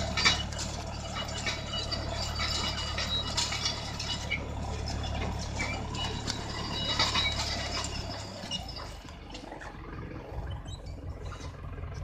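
Mahindra Novo tractor's diesel engine running steadily, with clattering and rattling from the mulch-film laying machine it tows. About eight seconds in the engine sound cuts off suddenly, leaving fainter, different background noise.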